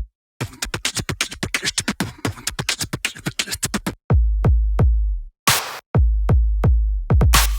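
Electronic background music with a fast drum-machine beat and deep bass notes, stopping dead for brief moments in between.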